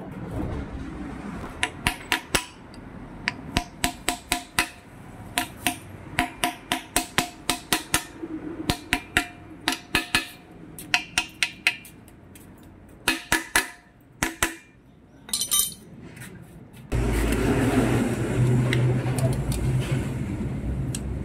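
A steel L-shaped box wrench and other metal tools clink and tap against an aluminium scooter engine crankcase during assembly, in quick runs of sharp metallic clicks. About seventeen seconds in, a steady low hum and rumble from some machine starts.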